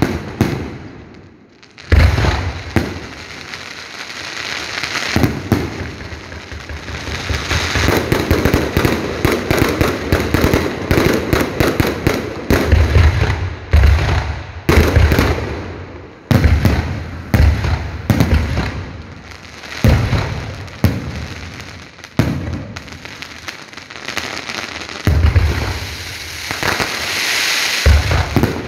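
Fireworks display: aerial shells bursting with deep booms every second or two, loud and continuous. Dense crackling fills the gaps, heaviest in the middle and again near the end.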